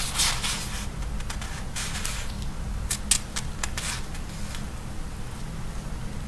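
Short, soft rustles and clicks from something being handled close to the microphone, over a steady low hum; the handling stops about four and a half seconds in.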